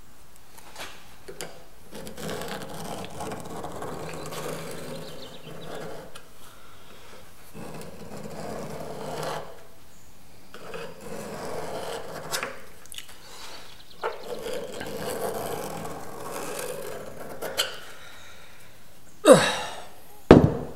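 Hand scriber scratching around a wheel hub onto steel plate coated in marking blue, in several long strokes a few seconds each with short pauses between. Near the end come two loud knocks as the heavy metal hub is moved off the plates.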